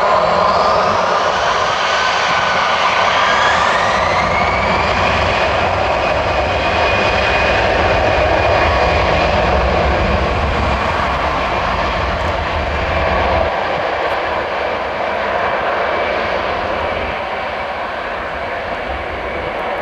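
Airbus A320-214's CFM56 jet engines spooling up, a whine rising in pitch over the first few seconds, then running steadily at high thrust as the aircraft starts its takeoff roll away down the runway. The engine noise slowly fades as it moves off.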